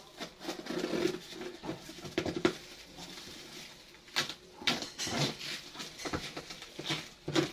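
TV packaging being handled during unboxing: irregular rustling, scraping and knocking, with no steady rhythm.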